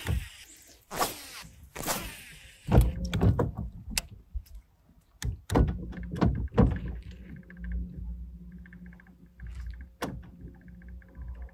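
Baitcasting rod and reel being cast and then cranked in, with a quick ticking from the reel, sharp knocks and low thumps against the boat deck, and a low steady hum that sets in partway.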